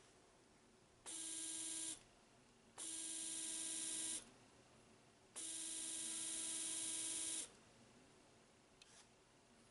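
AC 220 V universal motor running on DC, switched on and off three times: a steady whine lasting about one, one and a half, and two seconds, each cutting off suddenly.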